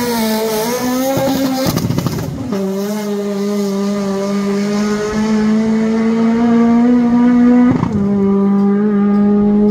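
Drag car engine at high revs during a quarter-mile pass, a steady note that climbs slowly in pitch. The note breaks and drops at gear changes about two seconds in and again near eight seconds.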